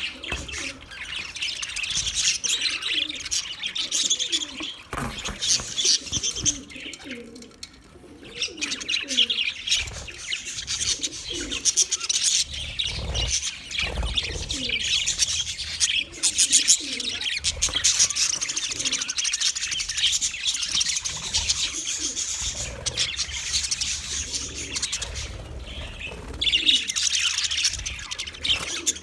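A flock of budgerigars chirping and chattering continuously in rapid high notes, with a short lull about seven seconds in.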